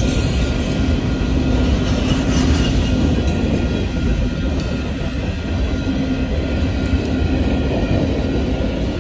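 Union Pacific freight train rolling past close by, boxcars and tank cars going by with a steady, loud rumble of wheels on rail.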